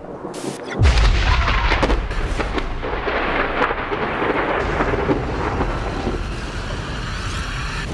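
Thunder: a short burst of noise, then a sudden loud thunderclap just under a second in, followed by a long crackling, rolling rumble that slowly fades, with a rain-like hiss.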